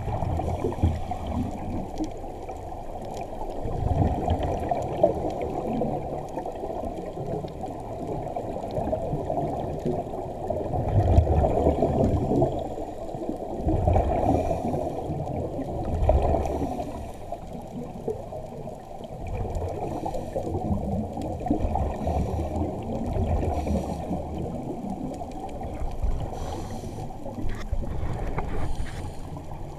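Scuba diver's exhaled bubbles venting from the regulator, heard underwater as a muffled rushing gurgle that swells in surges every few seconds.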